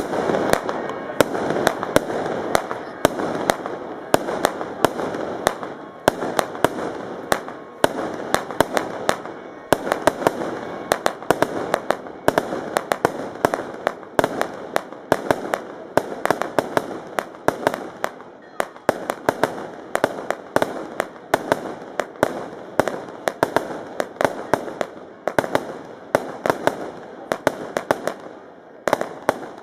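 A long ground display of firecrackers going off without a break: sharp, irregular bangs, several a second, over a steady crackle.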